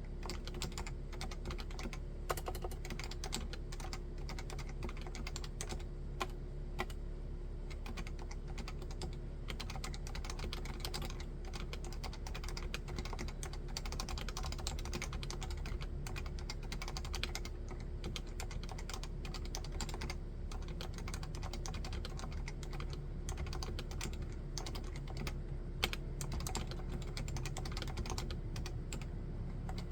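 Continuous typing on a Leopold FC660C 65% keyboard with standard (non-silenced) Topre electrostatic capacitive switches: a dense, unbroken stream of keystrokes with a few louder strokes scattered through.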